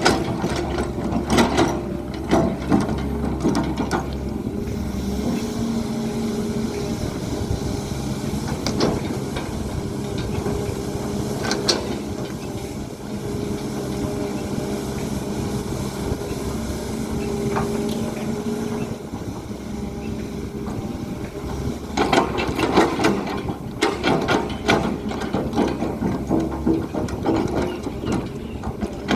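A hydraulic excavator's diesel engine runs steadily. Its steel tracks or working parts clank and rattle in stretches: at the start, and again from about three-quarters of the way through to the end.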